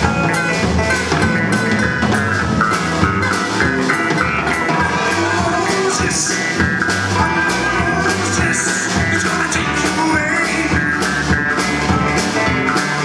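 Indie rock band playing live: a drum kit keeps a steady beat under electric guitar and keyboards, with a melodic line above them.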